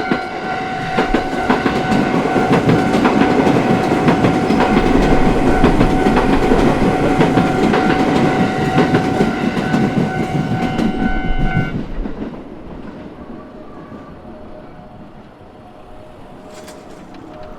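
Japanese level-crossing alarm bell ringing as a JR Sobu Main Line train passes over the crossing with wheel clatter. The bell and the loudest train noise stop together about twelve seconds in, leaving the fading train.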